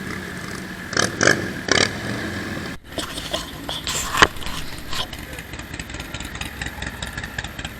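Motorcycle engines idling, with people talking in the background.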